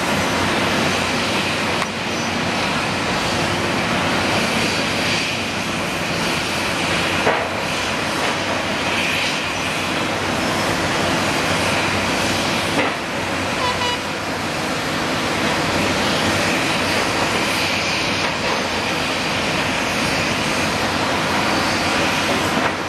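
Caterpillar 385C excavator's diesel engine running steadily as the machine dumps a bucket of dirt into a dump truck and swings back into the pit to dig. A few sharp knocks stand out now and then.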